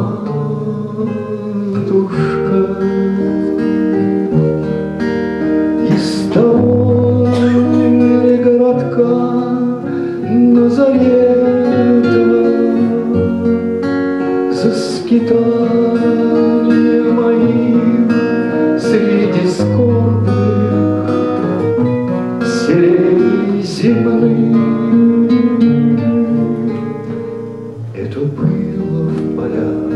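Acoustic guitar strummed and picked, with a man singing along in a bard-song style.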